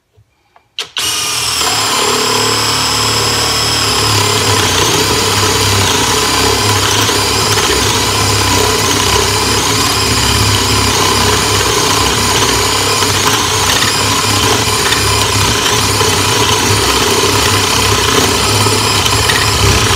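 Greenworks 24V brushless 1/2-inch drill driver boring a 1 1/8-inch spade bit into a wooden block, on its faster speed setting. The motor starts about a second in and runs steadily under load.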